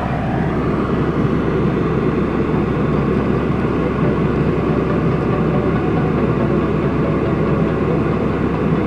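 A Subaru Pleo kei car running, a steady, dense noise strongest in the low range.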